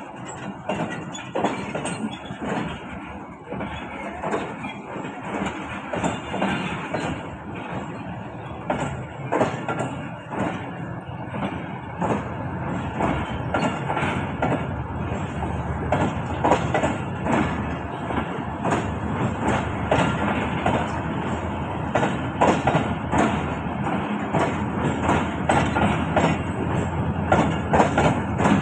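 Pakistan Railways passenger coaches rolling past a station platform: a steady rumble of wheels on rail with many irregular clicks and knocks, getting a little louder in the second half.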